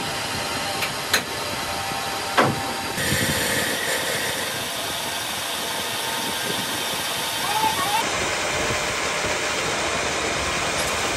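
Metal lathe running, its chuck turning a boring bar that cuts into a hole in a cast tractor differential case. Steady machine noise with a few sharp clicks and one louder knock about two and a half seconds in.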